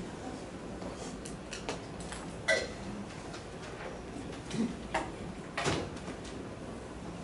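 Chalk tapping and scraping on a blackboard as Chinese characters are written, heard as scattered short taps and knocks; the sharpest knock comes about two and a half seconds in.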